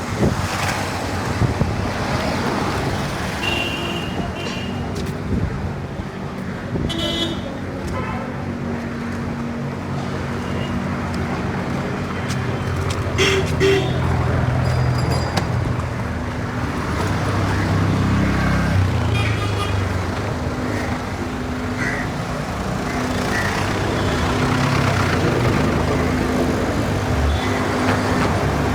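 Busy Indian street: steady traffic noise with vehicle engines running, short horn toots several times, and a crowd of voices beneath.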